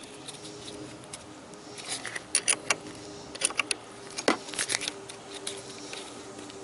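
Sharp, irregular clicks in short clusters from a 10 mm wrench working a car battery's terminal clamp nut tight.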